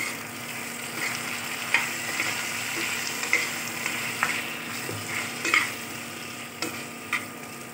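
Onions, capsicum and green chillies sizzling in a non-stick kadai as a steel spatula stir-fries them, with a steady frying hiss and the spatula scraping and tapping against the pan about once a second.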